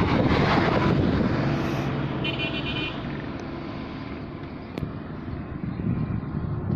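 A road vehicle passes close and its engine noise fades away over a few seconds, leaving a steadier, fainter engine hum.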